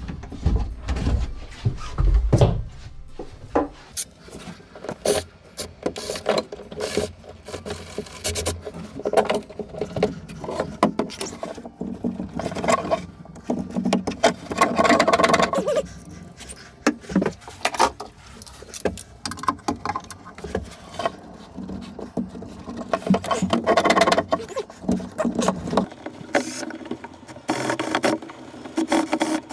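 Irregular knocks, clatter and scraping of tools and plumbing fittings as a boat's marine toilet plumbing is unscrewed and pulled out, with denser stretches about halfway through and near the end.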